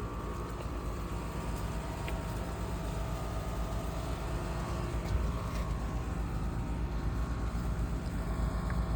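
Outdoor air-conditioner condensing units running: a steady hum with a few constant tones over a low rumble.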